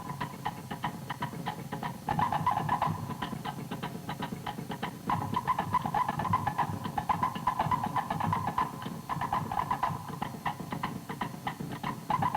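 Fast Tahitian dance drumming: a rapid, steady stream of drum strikes.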